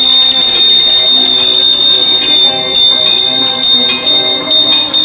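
Temple bell ringing, struck over and over in quick, irregular strokes, several a second, with a steady high ringing tone held under the strokes.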